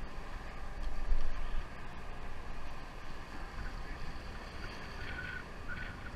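Steady low rumble of a sportfishing boat at sea, with wind on the microphone and water along the hull; a louder gust of wind noise about a second in.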